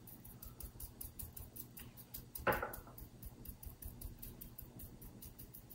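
Faint hand sounds of fingers patting and pressing dried oregano and fish seasoning into a raw halibut fillet on a wooden cutting board. There is light, quick ticking throughout and one short swish about two and a half seconds in.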